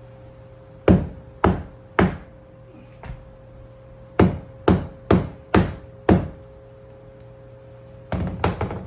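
Hammer blows on a scrap 2x4 block taped to a vinyl floor plank, knocking the plank over to close a separated joint. Three sharp blows, a light tap, then five blows in quick succession, and a rapid flurry of blows near the end.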